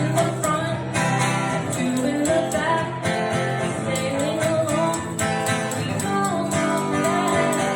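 Live band music led by guitar, with a wavering melody line above it and a steady percussion beat.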